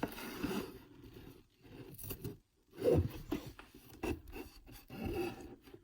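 Product packaging being worked open by hand: irregular rubbing and scraping, with a sharper click about two seconds in.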